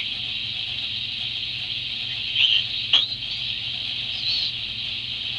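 Shortwave receiver's steady static hiss, broken by a few brief squeaky chirps about two and a half, three and four and a quarter seconds in, with a sharp click at about three seconds. The chirps are a single-sideband amateur voice signal heard mistuned, which the operator takes to be on lower sideband while the radio is set for the other.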